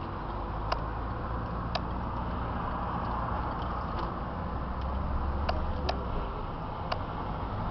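Steady low road and engine noise heard inside the cabin of a moving car, with a few sharp, irregularly spaced clicks.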